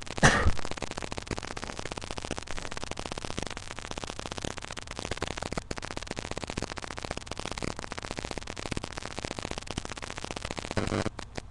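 A single loud human sneeze just after the start, voiced and abrupt, over a steady crackling static hiss from the recording. Near the end there is a brief, softer louder sound.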